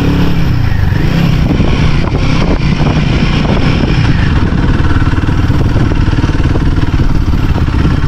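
Royal Enfield Himalayan 450's single-cylinder engine running at a steady, loud level.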